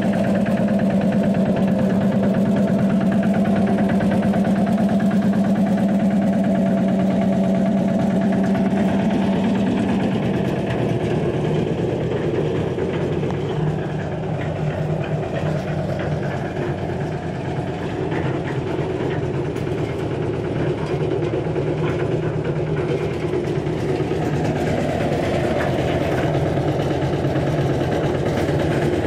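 Baromix Commodore 4/3 cement mixer's small engine running steadily, driving the empty drum. About ten seconds in, the engine note drops to a lower, slower speed and runs on there.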